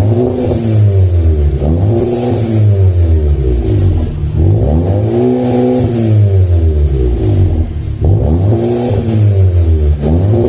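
Volkswagen Golf GTI Mk7's turbocharged four-cylinder revved again and again through a stainless-steel axle-back exhaust, the pitch climbing and dropping back about every two seconds.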